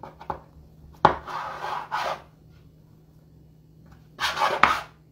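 A knife cutting dough on a wooden cutting board. Twice, about a second in and again about four seconds in, the blade knocks on the board and then scrapes across it for about a second.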